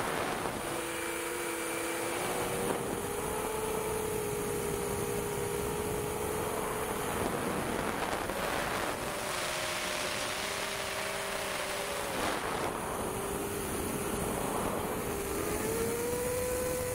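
Long-range FPV quadcopter's brushless motors and propellers whining in flight, several close tones that shift up and down in pitch as the throttle changes, with a steady rush of wind over it.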